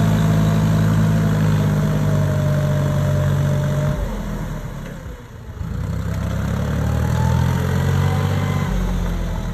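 John Deere 5055E tractor's diesel engine running steadily under load as it pulls a disc harrow through a flooded paddy. The engine sound dips sharply for about a second around halfway, then returns with its pitch shifting.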